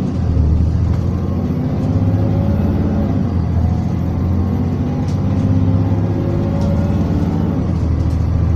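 Alexander Dennis Enviro400 double-decker bus running, heard from inside the passenger cabin: a steady engine drone with loud, continuous rattling from the seats or interior fittings.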